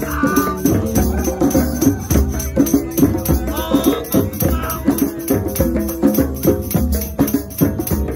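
Drum circle playing: djembes and other hand drums beat a dense, steady rhythm, with an acoustic guitar strumming held chords underneath.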